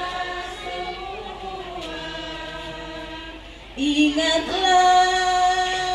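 Voices singing an Islamic sholawat in a drawn-out, ornamented style with long held notes. About four seconds in, a louder, higher note comes in and is held steadily for nearly two seconds.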